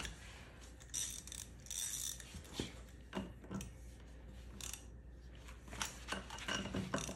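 Pittsburgh socket ratchet being worked on a tight lug nut: irregular sharp clicks of the pawl, with some metal clunks as the wrench and extension are repositioned.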